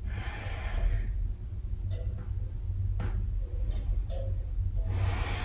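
A person's long, slow breath at the start and another near the end, over a steady low hum, with a single sharp click about three seconds in.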